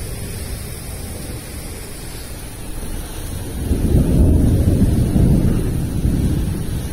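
Heavy thunderstorm rain pouring steadily onto a flat roof. About halfway through, a deep rumble of thunder swells up, rolls on for a few seconds and then eases.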